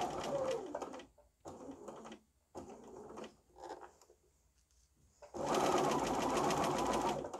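Bernina B 570 sewing machine stitching a pinned patchwork seam. It runs for about a second, then stitches in a few short, slow bursts to get over the pins without breaking the needle, pauses, and runs steadily again for the last two seconds.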